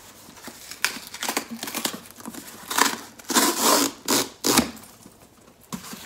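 Cardboard box being handled and opened by hand: a run of clicks and rustles, with a longer scraping rasp about three seconds in and two sharp bursts soon after.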